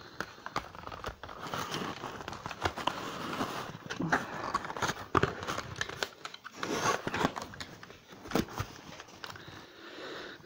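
Cardboard packaging being handled: irregular rustling, scraping and sharp clicks as a boxed die-cast model on its cardboard display base is worked out of its box.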